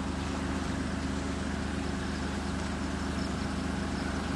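A vehicle engine running steadily: a low, even drone with no change in pitch.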